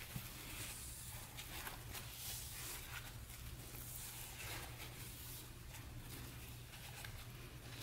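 Soft, irregular scraping and wiping strokes as a gloved hand and a paper towel rub stripper-softened paint and citrus stripping gel off plastic dirt-bike bodywork, over a low steady hum.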